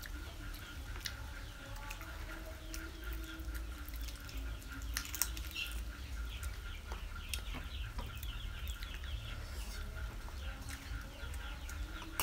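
Chickens clucking, mixed with frequent short clicks and smacks of people gnawing on chicken feet.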